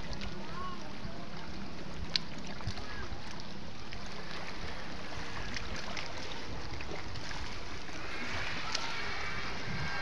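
Steady wind on the microphone over a calm, rocky shoreline with gentle sea water, a faint low hum underneath in the first half and a sharp click about two seconds in.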